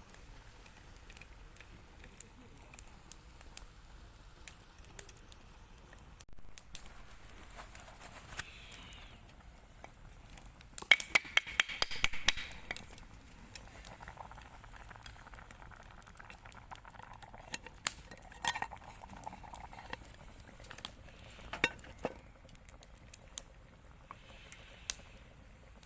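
Camp cookware clinking and knocking: scattered light metal clicks, with a burst of rapid clattering about eleven seconds in.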